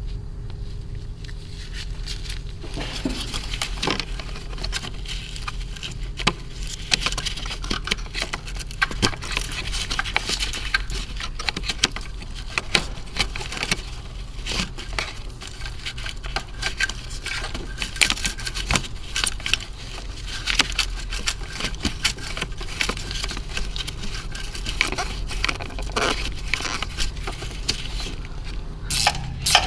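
Hands handling rubber hoses, plastic fittings and hose clamps during an evap purge valve swap: scattered clicks, light knocks and scrapes, over a steady low hum. Near the end a quick, evenly spaced run of clicks starts, like a tool turning a clamp.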